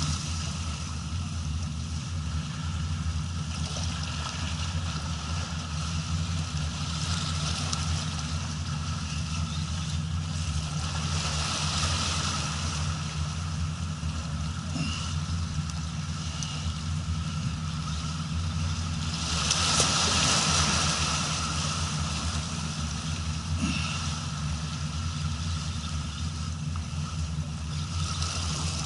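Boat engine idling steadily with a low, even hum. About twelve seconds in and again near twenty seconds come two louder rushes of hissing water-like noise.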